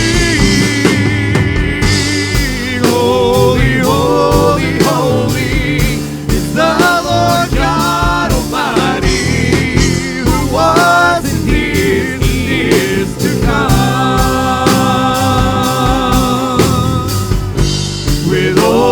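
Live worship band playing an instrumental passage between sung lines: a steady drum beat under full band accompaniment, with a wavering lead melody rising and falling over it.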